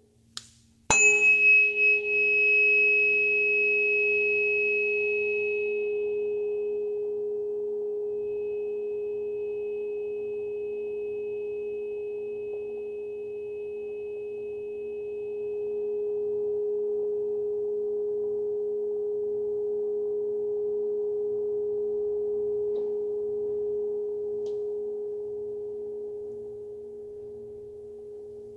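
A tuning fork from a Solfeggio set struck once about a second in, a sharp tap, then ringing in one steady pure tone. A bright high overtone dies away within about seven seconds, while the main tone rings on and slowly fades near the end.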